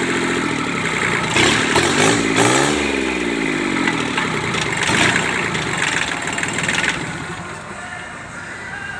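Kubota D650 three-cylinder diesel engine running, its pitch rising and falling about two to three seconds in, and quieter after about seven seconds.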